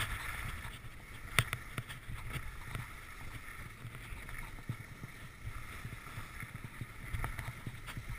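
Skis sliding and scraping over packed snow, with a steady low wind rumble on the microphone and a sharp knock about a second and a half in.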